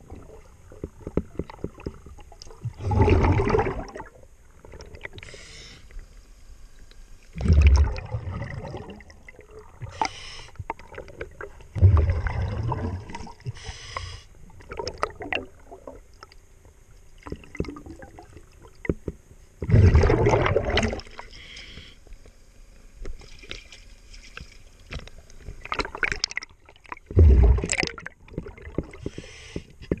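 Underwater sound of a scuba diver's regulator: five loud bursts of exhaled air bubbles, each about a second long and a few seconds apart. Faint scattered clicks come between the bursts.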